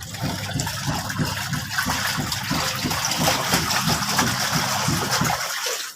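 Water gushing and splashing in a washing machine, cutting off suddenly near the end.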